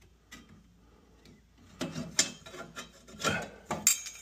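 Sheet-metal parts in a Burnham ES2 gas boiler's burner compartment scraping and knocking as they are handled. It starts about two seconds in, with a few sharper metal knocks.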